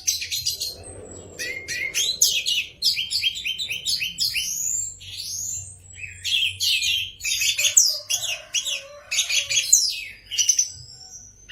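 Orange-headed thrush (anis merah) singing a fast, varied song of quick chirps, trills and sweeping whistles, without a break.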